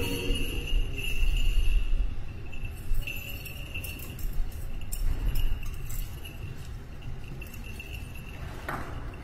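Small metal bells jingling and clinking irregularly, busiest in the first half and thinning out toward the end.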